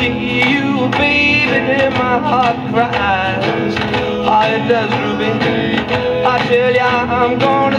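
A country or rock-and-roll record with guitar and a singer, playing through the loudspeaker of a 1960s Columbia 360 portable record player's tube amplifier, with little treble.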